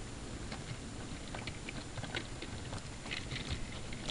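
Model railway goods wagons rolling past on the track: a steady low rumble with irregular light clicks of small wheels over rail joints, the clicks coming thicker about three seconds in.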